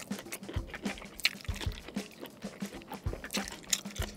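Wet chewing and mouth smacks of a person eating a spicy squid and rice dish, with fingers squishing and scooping the sauced rice by hand. The sound is made of many short, irregular clicks, with one sharper click about a second in.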